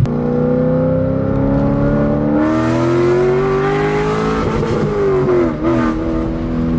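A 2003 Corvette C5 Z06's LS6 V8 accelerating. Its pitch rises steadily for about four seconds, then falls back with a brief dip and runs on.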